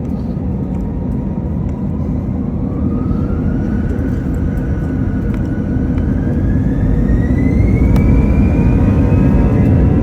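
Airbus A321 jet engines spooling up for takeoff: a heavy low rumble with a whine that climbs steadily in pitch and grows louder through the middle of the stretch.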